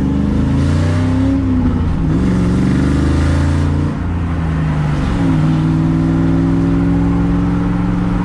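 The V8 engine of a 2001 Roush Mustang pulls under acceleration through the gears, with its pitch falling back at shifts about two and five seconds in, then holding steady. It is running on a freshly installed set of MSD Blaster coils and new spark plugs.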